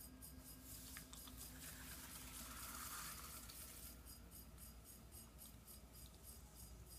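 Faint wet swishing and rubbing of hands on clay spinning on a potter's wheel as a bowl is opened and shaped, swelling between about one and four seconds in, over a low steady hum.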